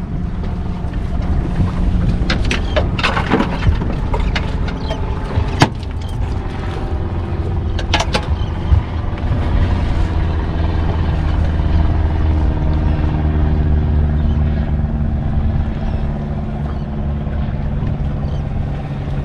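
Small fishing boat's outboard motor idling steadily under wind and water noise, with a few sharp knocks and clicks in the first half.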